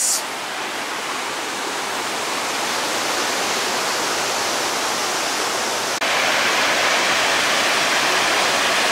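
Waterfall: a steady, even rush of falling water. About six seconds in it jumps suddenly louder and hissier.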